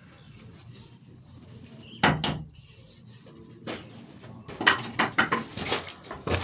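Hand tools and pipe fittings knocking and clattering: one sharp knock about two seconds in, then a run of quicker knocks and rattles in the second half.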